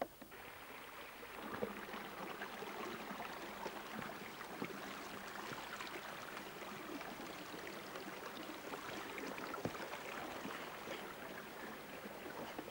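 A click, then shallow stream water running over rocks: a steady rushing with many small splashes, louder from about a second and a half in.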